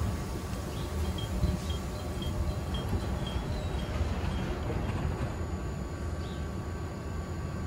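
South Shore Line electric commuter train standing at the platform, its onboard equipment giving a steady low rumble and hum. A run of short, evenly spaced high chirps comes about a second in and stops a couple of seconds later.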